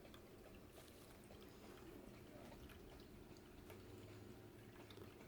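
Near silence: a faint steady room hum with a few soft, scattered ticks.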